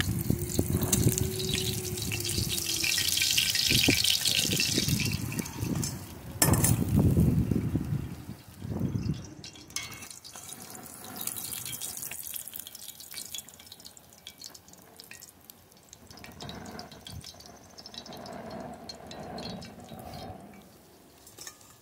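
Hot oil sizzling in a cast-iron skillet as whole fried crappie are lifted out with tongs, oil dripping off the fish back into the pan. It is loudest over the first several seconds, with a sharp knock about six and a half seconds in, and much quieter after about nine seconds.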